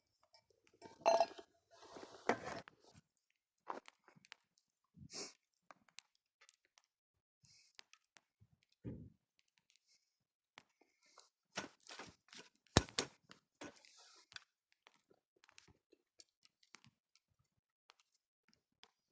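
Wood fire crackling: scattered, irregular snaps and pops from the burning wood, with quiet gaps between them and one sharp pop about thirteen seconds in.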